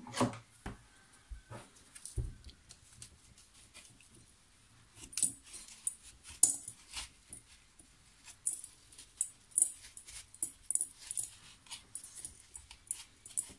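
A thin metal tool scraping and picking at the DCA4 coolant additive packed hard inside a Fleetguard WF2087 coolant filter's element: a few knocks at first, then a busy run of short, scratchy scrapes and clicks through the second half.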